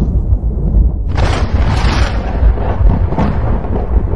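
A loud, deep rumbling sound effect with a rushing noise over it that swells from about a second in.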